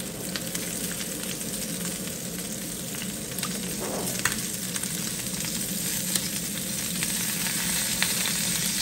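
Chicken pieces sizzling steadily on a hot ridged grill pan while melted butter is brushed over them. A few light clicks sound through the sizzle.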